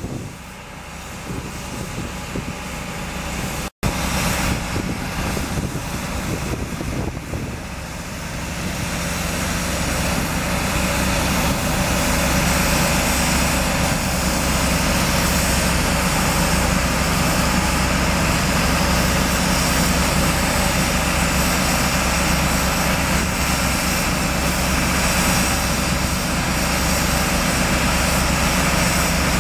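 Foundation-setting rail train's drilling rig and power unit running under load: a steady engine drone with a loud rushing noise over it, building up over the first ten seconds or so and then holding steady.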